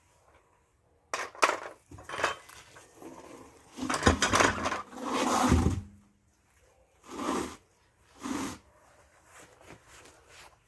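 Metallic clinks and clattering of lug nuts and a tire iron as the last wheel nut comes off and the wheel is worked off the hub, densest about four to six seconds in, with two shorter knocks after.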